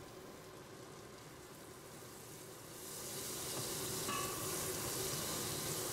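Butter sizzling in a stainless steel pot around freshly added sage, rosemary and thyme, getting louder about three seconds in as a wooden spoon stirs the herbs through the fat.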